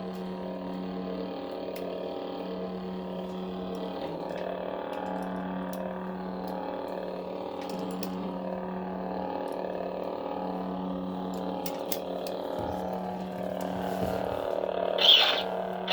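Lightsaber sound board's blade hum playing through the hilt's speaker: a steady, slightly wavering electronic hum with a few faint clicks, and a louder swoosh-like burst near the end.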